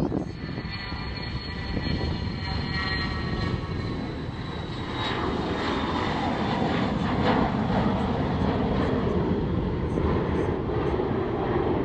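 Airplane engine noise: a high, multi-toned whine slowly falling in pitch over the first few seconds, then a broad engine rush that swells louder from about five seconds in and holds.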